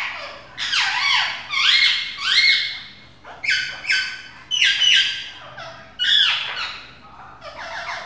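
Rose-ringed (Indian ringneck) parakeet calling loudly: a run of harsh pitched notes that sweep up and down, in about four clusters with short breaks between them.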